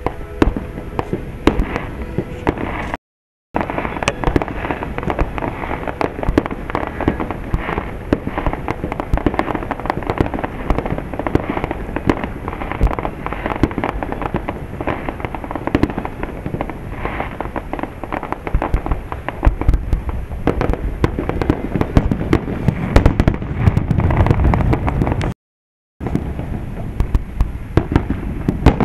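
Aerial fireworks display in a dense barrage: many shells bursting in quick, overlapping bangs and crackle, with deeper, heavier booms a few seconds before the end. The sound cuts out completely twice, briefly.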